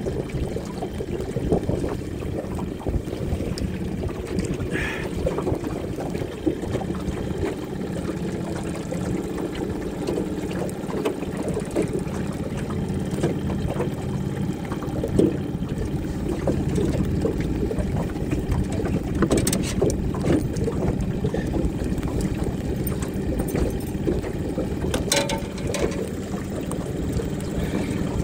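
A boat's motor running steadily at trolling speed, a low hum mixed with water and wind noise, with a few sharp knocks about two-thirds and nine-tenths of the way through.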